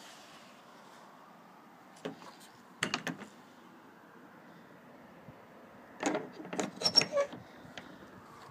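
A few sharp clicks and knocks about two to three seconds in, then a quicker, louder cluster of clicks and rattles around six to seven seconds in.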